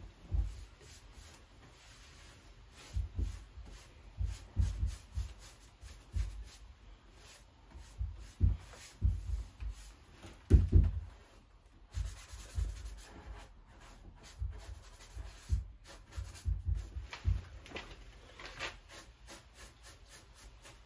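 Paintbrush bristles scrubbing finish onto a wooden door in short repeated strokes, with dull low bumps in between, the loudest about halfway through.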